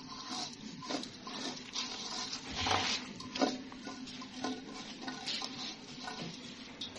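White rice being pushed by hand from a perforated aluminium strainer into a karahi of hot pulao liquid, the grains sizzling and pattering into the pan, with scraping and light clicks of metal on metal. The busiest stretch is about three seconds in, over a steady low hum.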